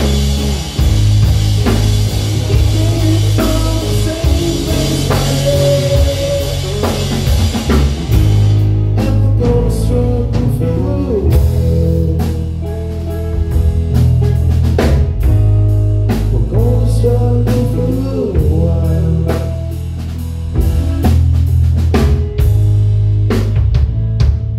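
Live rock band playing: electric guitar, electric bass and a Gretsch drum kit. Cymbals ring out for the first third, then drop away, leaving drum hits, a heavy bass line and guitar.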